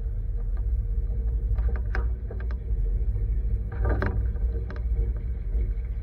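Truck driving slowly, heard from its loaded bed as a steady low rumble, with a few clanks and rattles of the scrap steel load shifting, about two and four seconds in.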